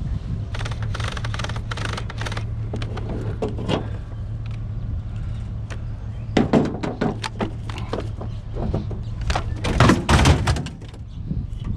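Clanks and thunks of scrap being handled and loaded, in four separate bursts of clatter, over a steady low hum.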